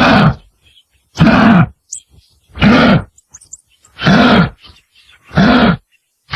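Kangaroo moaning calls: a series of short, rough calls about one every second and a half, each rising then falling in pitch.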